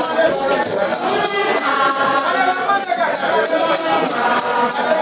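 A group of voices singing together over a rattle shaken in a steady beat, about four strokes a second.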